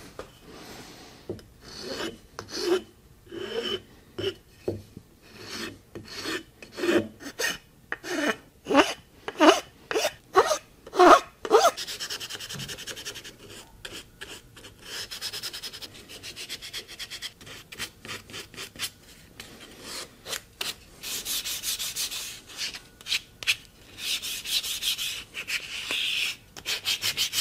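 Hand filing and sanding along the edges of a wooden hand plane body to round over its corners. Separate strokes grow louder up to about eleven seconds in, then give way to quicker, continuous scratchy rubbing.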